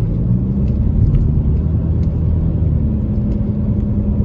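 Car engine and tyre noise while driving: a steady low drone, the engine note shifting slightly in pitch.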